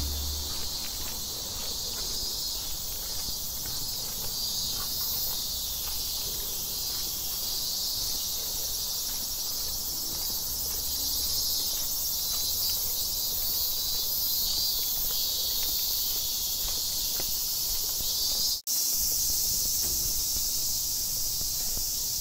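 Steady, high-pitched trilling of insects, with faint footsteps on a paved path.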